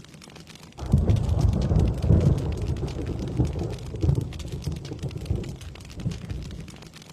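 Steady rain pattering, with a thunder rumble that breaks in suddenly about a second in, is loudest over the next second or two, and then dies away slowly.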